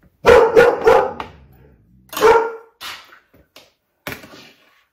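A dog barking: a quick run of loud barks starting about a quarter second in, another bark about two seconds in, then a few fainter ones.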